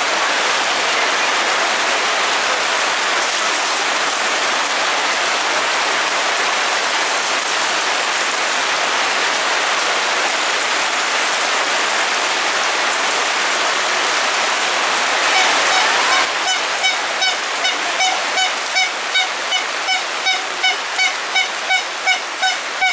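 Heavy rain falling, a steady loud hiss. About two thirds of the way in, a regular high ticking or pinging of about two strokes a second joins the rain.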